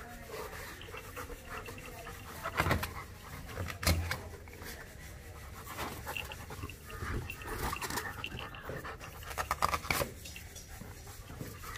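German shepherd puppy panting while nosing and mouthing a rubber balloon, the balloon rubbing and bumping against his muzzle, with a few sharp knocks, two of them a little over a second apart early on and a quick cluster near the end.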